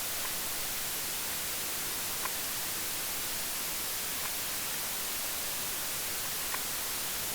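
Steady white-noise hiss, like radio static, with a few faint clicks.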